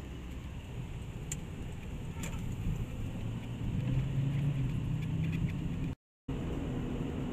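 Car engine and tyre noise heard from inside the cabin while driving, the engine hum growing louder about four seconds in. The sound cuts out for a moment near the end.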